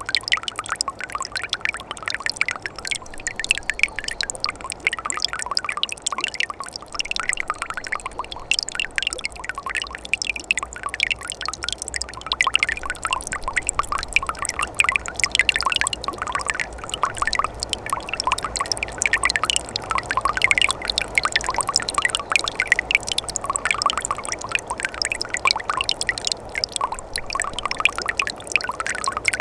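Mountain stream in winter flowing among ice, a steady babble of water splashing and trickling with many small quick splashes.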